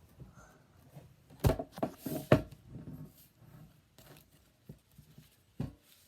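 Handling noises: a couple of sharp knocks about one and a half and two and a half seconds in, with lighter taps and rustles around them.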